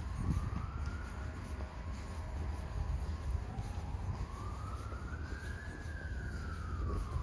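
An emergency-vehicle siren in a slow wail, its pitch rising and falling over a few seconds at a time, over a steady low rumble.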